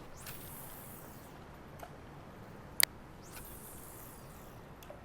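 Fishing rod and reel being handled during a cast and retrieve: two brief high hissing swishes and a couple of sharp clicks over a faint steady background of river noise.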